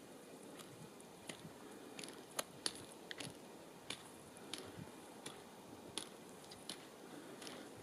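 Golden-mantled ground squirrel nibbling lupine flowers: faint, irregular crisp clicks of its chewing and biting, a few at a time with pauses, two sharper ones about two and a half seconds in.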